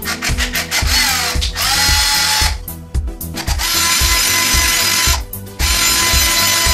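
Milwaukee cordless drill running in three bursts of about one to one and a half seconds each. The first burst spins up with a rising whine before it levels off.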